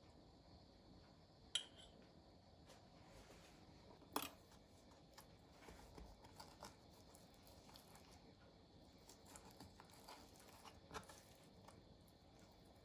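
Quiet kitchen handling: two sharp clinks of metal utensils against a glass mixing bowl, then scattered soft clicks and scrapes of a knife on a wooden cutting board as a chicken thigh is deboned.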